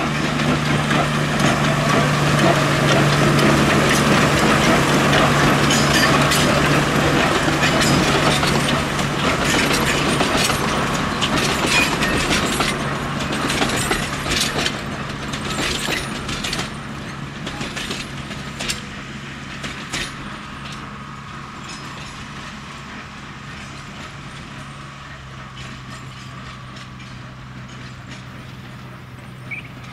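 Narrow-gauge Planet diesel locomotive running with its train, its engine giving a steady low note. A run of sharp clicks from wheels and couplings comes through the middle. The whole sound fades over the second half as the train draws away.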